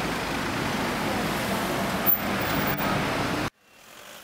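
Steady rush of city street traffic, with a short sharp tick about two seconds in; it cuts off suddenly near the end, leaving a much quieter background that slowly swells back.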